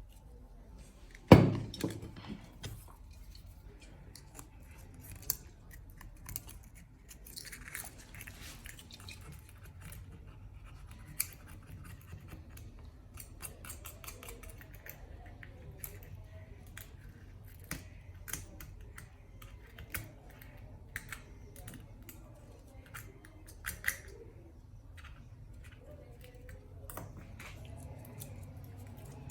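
Small hand tools clicking, tapping and scraping at an iPhone 11's cracked back glass, many short scattered sounds, with one louder sharp knock about a second in.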